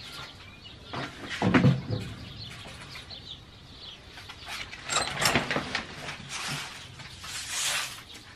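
Knocks, clatters and rustling of household things being handled and moved. The loudest knocks come about a second and a half in and about five seconds in, and a longer rustling scrape comes near the end.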